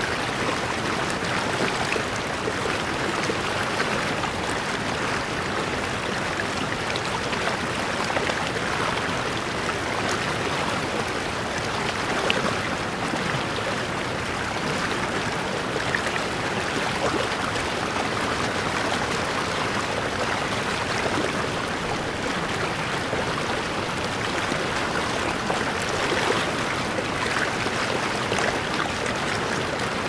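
Waterfall pouring steadily: a dense, even rush of falling water with the odd brief splash standing out.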